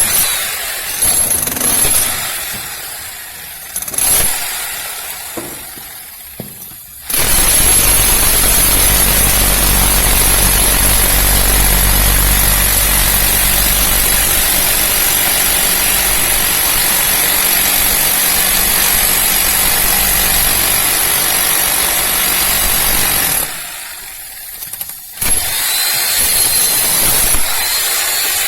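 Electric demolition hammer chiselling into cast concrete. It runs in short bursts at first, then hammers continuously for about sixteen seconds, stops briefly, and starts again in short bursts near the end.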